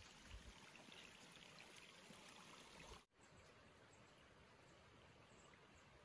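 Faint trickle of water flowing through a beaver dam, which cuts off abruptly about three seconds in. A quieter, still faint forest ambience follows, with a few soft high chirps.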